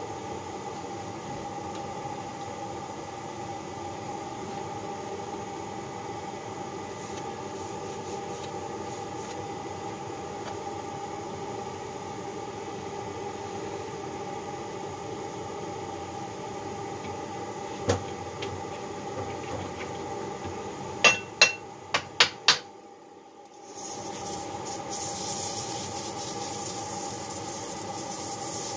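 Steady hum of the gas burners heating the Babbitt melting pots. One sharp knock about two-thirds of the way in, then five quick sharp knocks, a brief lull, and a gas torch hissing near the end as a hot part smokes.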